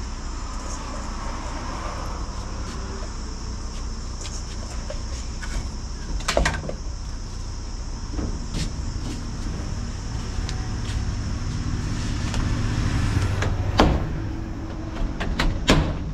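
Sharp clinks and knocks of steel bowls and utensils on a stone-topped worktop, a handful of times, over a steady low mechanical hum and a faint high steady whine.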